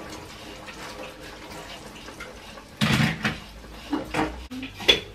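Kitchen cookware clattering: a wooden spoon stirring in a pan on the stove, with pots and utensils knocking together, loudest in a cluster about three seconds in and a sharp clink near the end, over a steady faint hiss.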